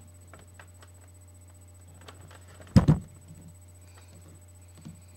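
Handheld camera being moved, with faint rustling and small clicks over a steady low hum, and a short loud thump, a double knock, just under three seconds in.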